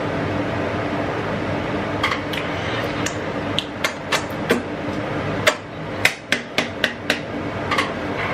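About a dozen sharp, irregular taps and clicks, starting about two seconds in and clustering near the middle, over a steady low hum.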